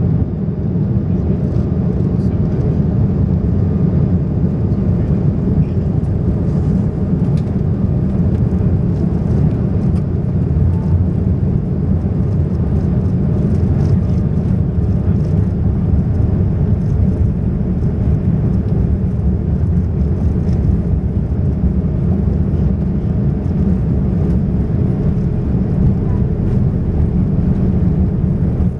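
Cabin noise of an Airbus A340-600 taxiing: a steady low rumble from its four Rolls-Royce Trent 500 engines and the airframe, with faint ticks and rattles over it.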